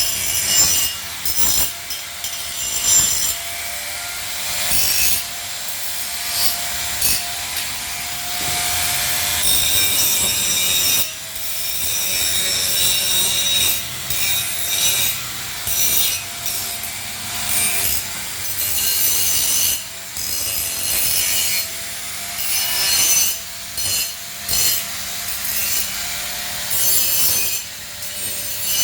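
Angle grinder working steel: a steady motor whine under a harsh grinding hiss, the grinding coming and going as the disc is pressed on and lifted off the metal.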